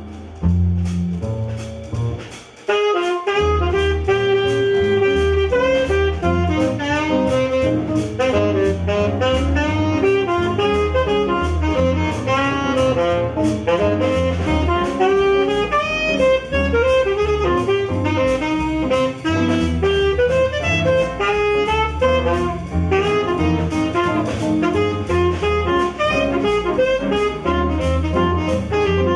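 Small jazz band playing live, a saxophone carrying the melody over double bass, piano and drums keeping a steady beat. After a quieter opening and a brief break, the full band comes in about three seconds in.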